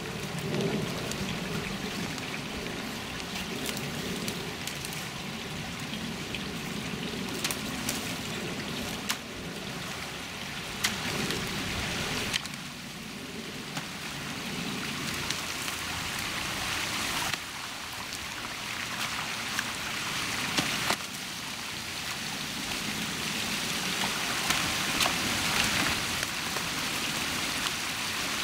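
Water trickling and running through a beaver dam of sticks and mud as it is pulled apart, with a few sharp knocks of sticks.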